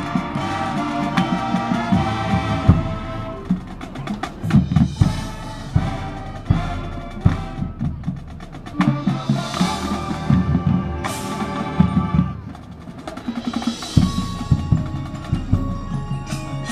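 High school marching band playing its halftime show: held wind chords at the start give way mostly to percussion, drum strikes on snare and bass drum with keyboard-like percussion, and bright swelling crashes partway through and near the end.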